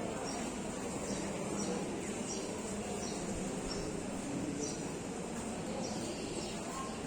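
Steady background murmur of voices, with a short high chirp repeating about every half second over it.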